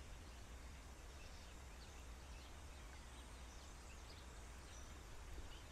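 Faint outdoor ambience: a steady low rumble with a few faint, brief bird chirps scattered through it.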